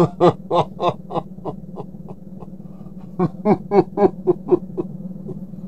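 A man laughing in short rhythmic 'heh-heh' pulses, about three a second, each run fading out. A first run tails off about two seconds in and a second run starts about three seconds in, over a steady low hum.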